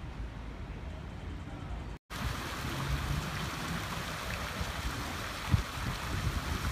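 A low, steady rumble of city traffic, then, after a cut about two seconds in, a fountain's water jets splashing steadily into its stone basin. A short low bump stands out about five and a half seconds in.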